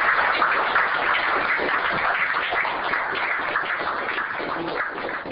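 Audience applauding, a dense patter of many hands clapping that slowly dies down near the end.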